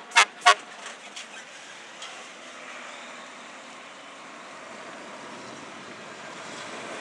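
Fire rescue truck's horn giving two short blasts in the first half-second, with a brief echo. Then a steady rush of the truck driving away, growing louder near the end.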